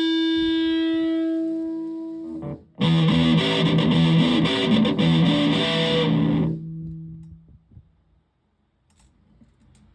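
Electric guitar with humbucker pickups played through a heavily modified Buzzaround fuzz pedal. A held distorted note rings out and fades, then a fast fuzzed riff runs for about three and a half seconds. It ends on a low note that dies away to near silence.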